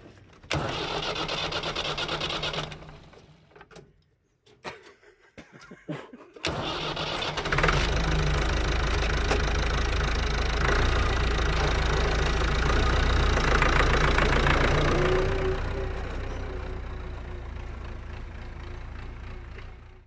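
Massey Ferguson 165 tractor engine being started: a first crank of about two seconds that does not catch, then after a pause a second crank on which the engine starts. It then runs steadily and grows gradually quieter over the last few seconds.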